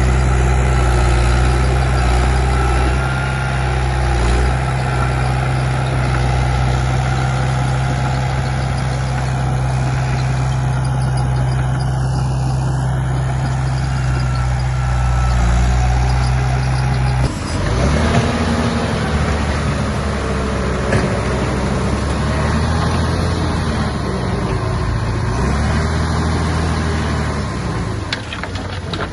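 Heavy construction machine's diesel engine running at a steady note, then after an abrupt change about two-thirds of the way through, the engine note rises and falls repeatedly as the machine works under varying load.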